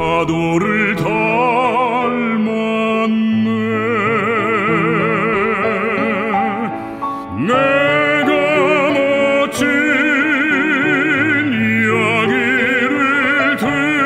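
A baritone singing a Korean art song in classical operatic style with piano accompaniment, long held notes with wide vibrato. The voice breaks off briefly about seven seconds in, then sweeps up into the next phrase.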